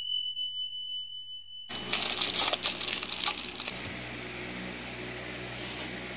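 A steady high electronic tone runs for about a second and a half, then cuts off suddenly. About two seconds of rustling and clicking follows as motorcycle side-mirror parts are handled in a foam-lined box. A steady low hum continues under it.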